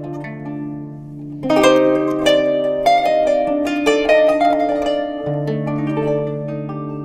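Kanun, the Turkish plucked zither, playing a melody. Low held notes ring for the first second and a half, then quick runs of plucked notes start up over a sustained bass and gradually soften toward the end.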